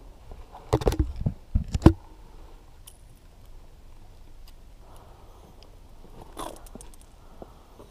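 Close handling knocks and scrapes while a small striped bass is held and taken off the hook. There is a cluster of them about a second in and a brief clatter near the end, with a low steady background between.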